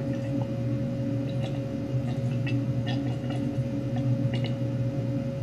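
Faint scattered clicks and taps of a 3D-printed plastic delta-printer effector and its metal hotend block being handled, over a steady low hum with a constant higher tone.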